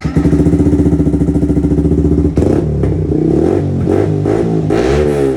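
Motorcycle engine running with a steady, even pulse, then revved up and down several times from about two seconds in.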